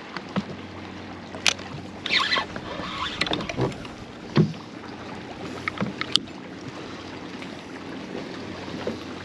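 Choppy water lapping against a fishing kayak's hull, with a low steady hum underneath and a few short knocks and clicks. The loudest is a single thump about four seconds in.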